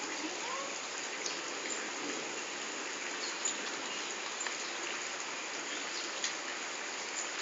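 Steady hissing background noise with a few faint ticks and brief high chirps.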